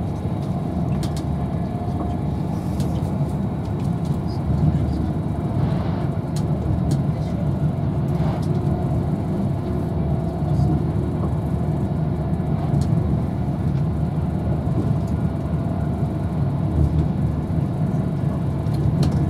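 Steady low rumble inside the passenger saloon of an Avanti West Coast Class 390 Pendolino electric train running at speed, with a faint steady tone above the rumble.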